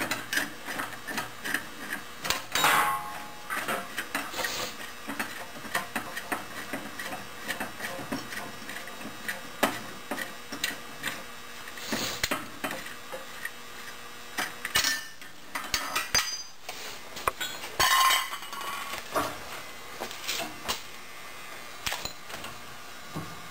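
Irregular metal clinks and knocks as steel semi-elliptical leaf springs are handled and set against each other for comparison, with louder clatters about three seconds in and again near eighteen seconds.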